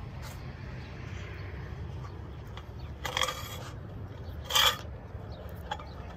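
Wire clothes hangers scraping and clinking along a ladder's metal rail as garments are pushed aside, twice: about three seconds in and, louder, about four and a half seconds in.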